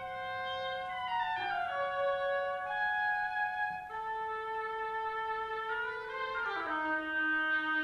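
Contemporary classical music: several sustained instrumental notes held together as a slowly shifting chord, with short slides in pitch from one note to the next, twice.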